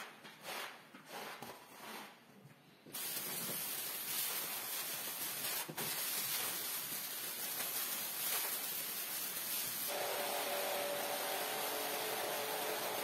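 Several wet squeegee strokes scraping across a soaked rug, then a steady hiss of water spraying from about three seconds in. Near the end a pressure washer sprays the rug, a steady motor hum under the hiss.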